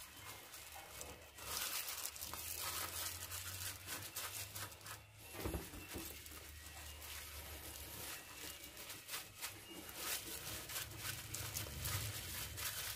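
Hand in a plastic bag mixing thin cake batter in a large metal bowl: the plastic crinkles and the wet batter squishes in an uneven, ongoing rustle.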